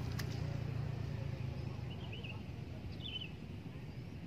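A low engine hum that slowly fades, with a small bird giving short chirps about once a second and a single sharp click near the start.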